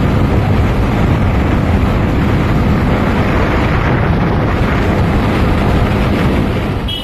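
Loud wind rush on the microphone of a moving motorcycle, with the motorcycle's engine running underneath; it fades out near the end.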